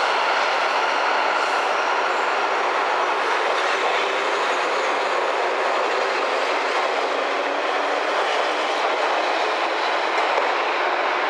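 Chichibu Railway 1000 series electric train, a former JNR 101 series, pulling out of the station. Its steady running noise carries on after the last car has passed and the train draws away.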